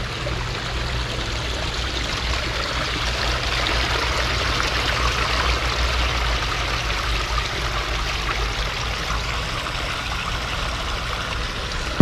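Water from a small pondless waterfall spilling over a rock ledge and running down a shallow pebble-and-boulder stream: a steady splashing trickle, a little louder midway through.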